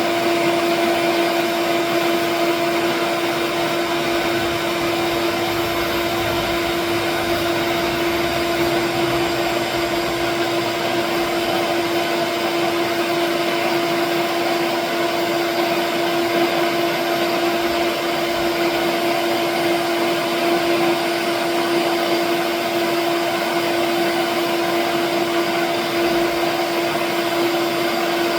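A vacuum runs steadily and loudly with a constant whine, sucking away sanding dust beside a lathe that is spinning a pen blank.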